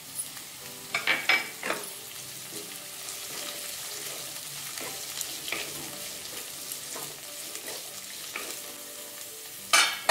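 Shredded cabbage, peas and onion sizzling in hot oil in a non-stick kadhai, stirred and scraped with a wooden spatula. A few light knocks about a second in and a louder knock near the end.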